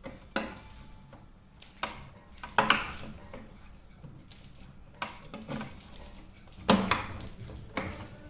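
Irregular metallic clinks and knocks, about eight in all, with the loudest about a third of the way in and again near the end. These are screws and a tool striking the treadmill's steel frame as the handlebar is bolted on.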